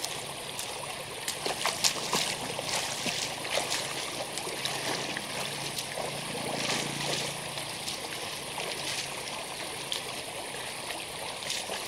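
Evening riverside ambience in the forest: a steady trickle of water with many small clicks and chirps scattered through it, and a faint low hum for a few seconds near the middle.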